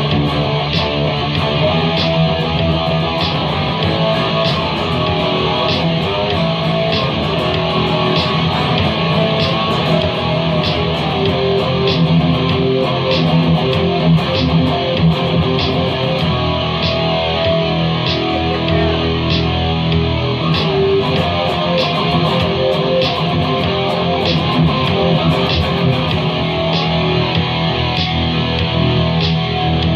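Guitar music, strummed and picked, over a steady beat of a little over one hit a second.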